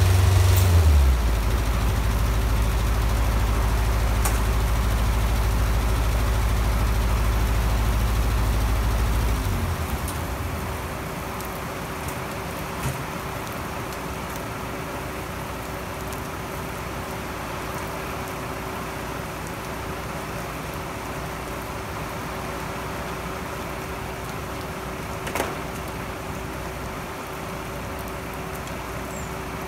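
A side-lifter trailer's engine running, dropping to a lower speed about a second in and shutting off at about ten seconds. After that, steady rain with a faint constant hum, and a sharp tick about 25 seconds in.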